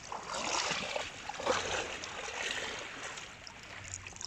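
Small waves washing and sloshing in the shallows at the water's edge.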